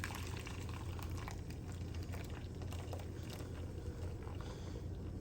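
Blended citrus juice being stirred in a container, a faint swishing of liquid with light scattered clicks, over a steady low hum.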